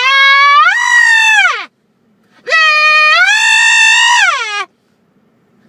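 A person's imitation of a woman's screams for help: two long, loud, high-pitched wails, each rising in pitch at the start and sliding down at the end.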